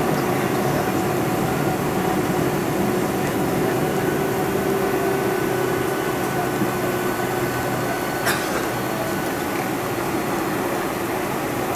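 Cabin noise of a Boeing 747-400 with General Electric engines rolling along the runway after landing: a steady jet-engine hum and rumble with a few held tones running through it. A single faint click about eight seconds in.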